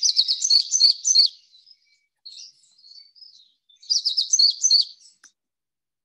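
Yellow-thighed finch song from a recording: a burst of rapid, high squeaky notes lasting about a second, softer scattered notes, then a second similar burst about four seconds in.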